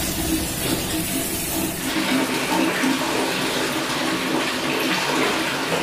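Water running steadily from a tap into a plastic basin in a kitchen sink.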